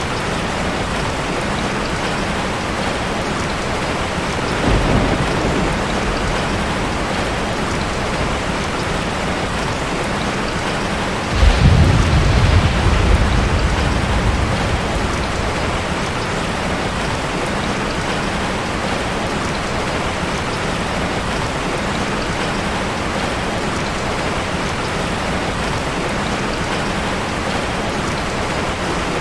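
Heavy rain falling steadily, with thunder twice: a short low rumble about five seconds in, then a louder clap near the middle that breaks suddenly and rumbles on for about three seconds.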